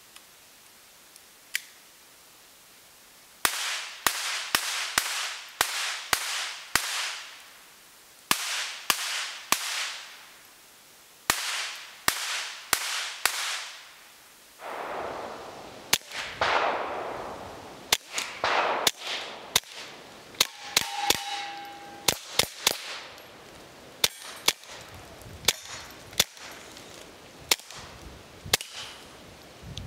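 Keltec P17 .22 LR pistol fired in quick strings of shots, each sharp crack trailing off in a short echo, with three strings in the first half. From about halfway there is a longer, faster run of shots with shorter tails.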